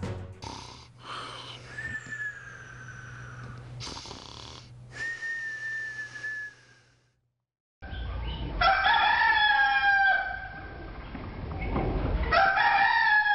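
A steady low hum with a few drawn-out high tones, which cuts to silence about seven seconds in. Then come two long, drawn-out animal calls, each about a second and a half long and falling in pitch at the end.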